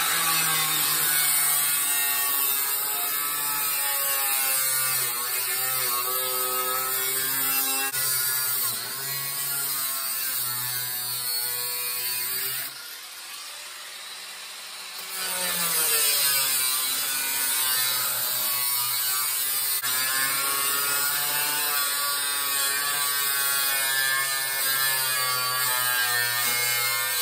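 Handheld cutoff wheel grinding through the rusted steel floor pan of a 1968 Pontiac Firebird, its whine wavering in pitch as it bites into the metal. It stops for a moment about 13 seconds in, then spins back up and carries on cutting.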